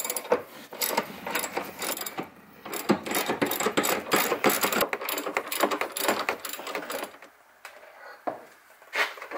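Socket ratchet wrench clicking rapidly as the 14 mm seat-mounting bolts are undone. The ratcheting stops about seven seconds in, leaving a few scattered soft sounds.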